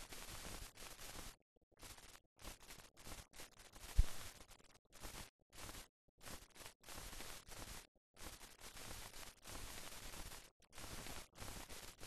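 Static hiss with no other sound, cutting in and out every fraction of a second, with one low thump about four seconds in.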